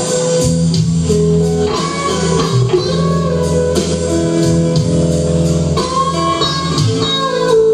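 Live band playing: electric guitar notes over bass guitar and drums, with held notes and a steady beat.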